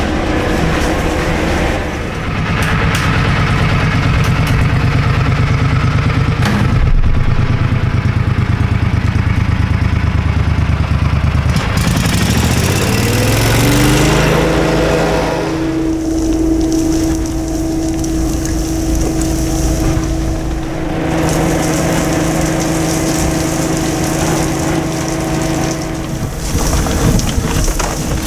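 Insulation vacuum machine running with a fast low pulsing beat, then rising in pitch over a few seconds about twelve seconds in and settling into a steady higher tone as it is turned up to a higher speed.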